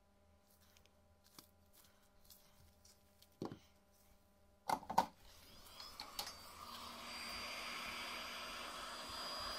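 Light clicks and a few sharp taps of small tools being handled, then from about six seconds in a steady rushing noise of a small blower that builds up and keeps running.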